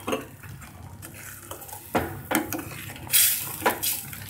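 Steel ladle stirring a wet ground coriander masala in a metal pan, scraping and clinking against the pan's sides, with a louder scrape about three seconds in. The masala is being thinned with water.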